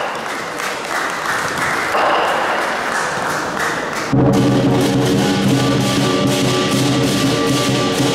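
Lion dance percussion: a large Chinese lion drum beaten fast with crashing cymbals, and from about four seconds in a loud sustained ringing tone joins the beat.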